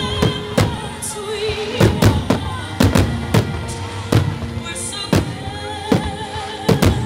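Aerial firework shells bursting in a rapid barrage, about a dozen sharp bangs at uneven intervals, over a song with a singer playing throughout.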